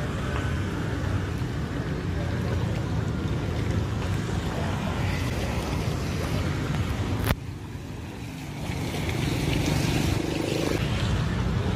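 Steady low rumble of outdoor wind and road traffic noise. A sharp click comes about seven seconds in, after which the rumble drops quieter for a moment before building back.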